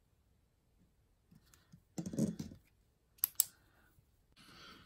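Quiet desk sounds of pens being handled and swapped: a soft handling sound about two seconds in, two sharp clicks in quick succession a little after three seconds, then faint scratching of a pen writing on planner paper near the end.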